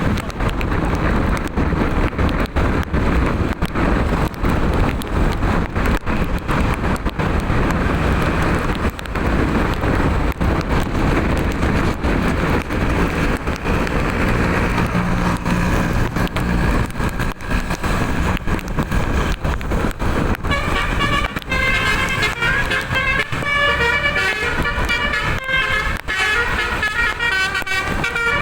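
Loud, steady rushing noise with many crackles for most of the stretch. About twenty seconds in, a bus's telolet horn (a multi-tone musical air horn) starts playing a quick tune of changing notes.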